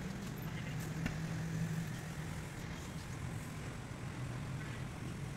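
An engine running steadily with a low hum, and one sharp click about a second in.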